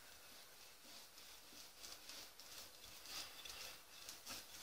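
Faint, soft swishing of a glass swing-top bottle rolled back and forth over floured gingerbread dough as a makeshift rolling pin.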